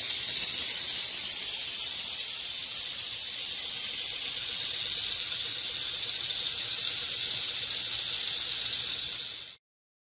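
Steam hissing steadily from a STEAMJET FX1-E electric steam car wash machine, a high, even hiss that cuts off abruptly near the end.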